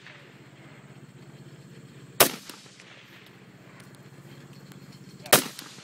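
Two single shots from a Rock River Arms AR-15 rifle, about three seconds apart, each followed by a short echo.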